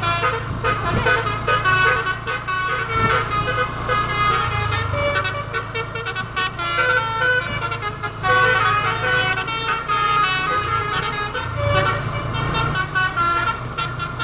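A bus's basuri 'telolet' musical air horn plays a tune of short pitched notes stepping up and down without a break, over the low running of the bus engine.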